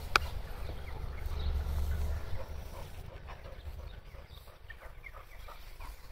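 Bull terriers moving about close by: a sharp click just after the start, then scattered light ticks and rustles, with a low rumble over the first two seconds.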